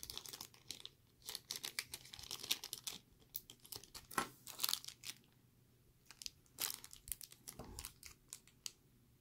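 Small clear plastic bags crinkling and rustling as they are handled, in three stretches of crackly rustle.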